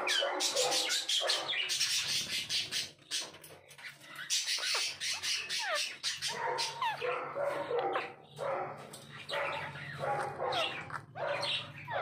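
Parakeets squawking and chattering: repeated short calls with quick up-and-down pitch slides, and a fast run of clicks in the first few seconds.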